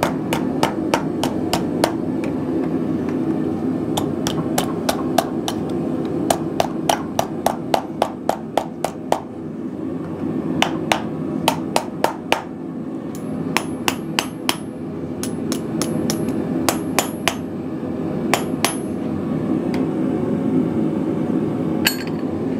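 Small hand hammer striking hot steel on a small beak anvil (bick) set in a wooden stump, in quick runs of about four blows a second with pauses between them. Several of the blows in the middle ring with a high tone. A steady hum runs underneath.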